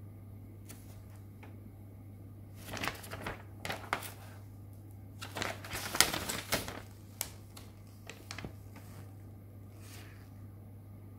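Paper instruction leaflet rustling and crinkling as it is handled and folded, in two spells about three and six seconds in with some sharp crackles, over a steady low hum.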